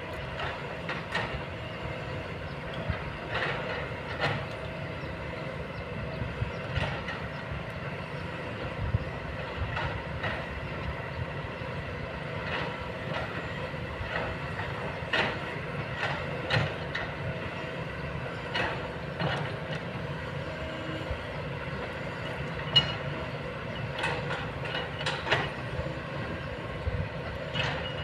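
Kobelco long-boom excavator working: its diesel engine runs steadily under a low rumble, with irregular sharp metallic clanks and knocks every second or few.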